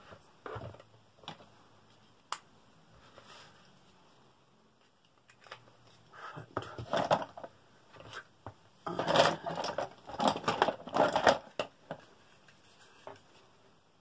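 Paper rustling and crinkling as cut paper pieces are handled, in two bouts, the second louder and longer.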